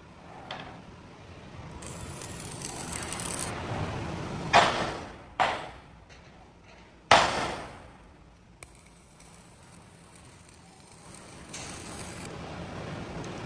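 Three sharp metal clanks on steel work, each ringing away briefly. The first two come close together and the third, the loudest, follows about a second and a half later.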